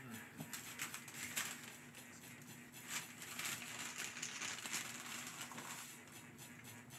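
Soft rustling and crinkling of a brown paper bag being handled, in short scattered strokes over a faint steady hum.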